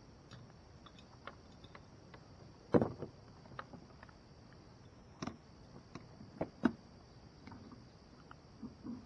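A handful of sharp knocks and lighter ticks at uneven intervals, the loudest about three seconds in, over a steady high-pitched hiss.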